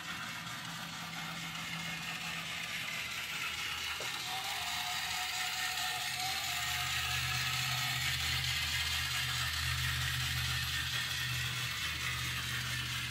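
Small motors and gears of motorized Christmas village accessories running: a steady mechanical whir and clatter, with a low hum that swells through the middle.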